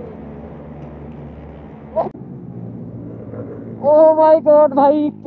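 Motorcycle riding noise: a steady low engine and wind rumble, with a short knock about two seconds in. Just before four seconds a loud, high voice comes in with held, pitched notes that break and start again several times.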